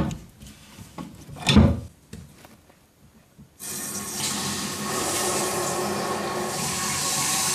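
A few knocks and clicks of tools on the plumbing fittings, then about three and a half seconds in, with the isolation valve opened, water suddenly rushes into the toilet cistern through a FlushKING brass-shank bottom-entry fill valve. The steady hissing fill grows a little louder as the cistern refills quickly.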